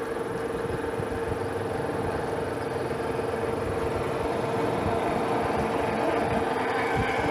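Metal lathe running while a twist drill bores into a spinning bar of 1018 hot-rolled steel: a steady machine hum with the rough grinding of the cut beneath it. A higher tone joins near the end.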